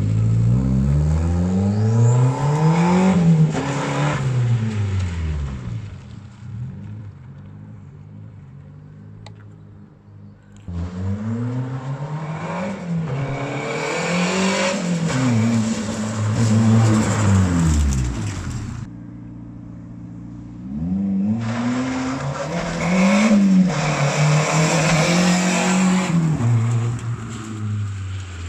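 Toyota Starlet EP82's turbocharged four-cylinder engine accelerating hard in three runs, the engine note climbing in each gear and dropping at each shift. Between the runs it eases off the throttle and goes quieter.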